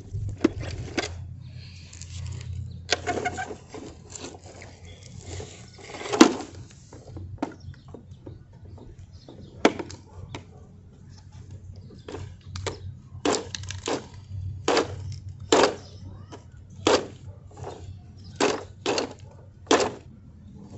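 Hard plastic clacks and knocks of toy garbage trucks being handled: a string of irregular sharp clicks, the loudest a little after six seconds and coming more often in the last third.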